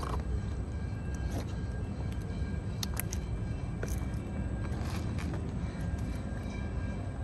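Steady low rumble of traffic on the elevated highway bridge overhead, with a few faint clicks near the middle.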